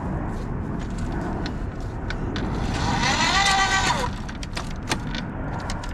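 Ryobi earth auger boring into soil, a steady low rumble with the motor's whine rising and then dropping briefly about three seconds in as it loads up, and a few sharp knocks near the end.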